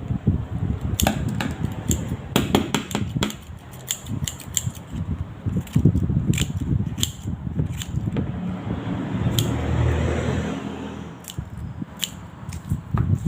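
Close-miked handling sounds: a run of sharp clicks and taps over low rustling and rubbing, with a longer swell of scraping or rustling noise around the middle.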